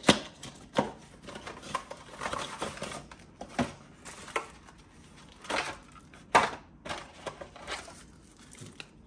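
Hands unpacking a Quad Lock car mount from its box: irregular sharp clicks and knocks of the parts and packaging, with stretches of rustling in between.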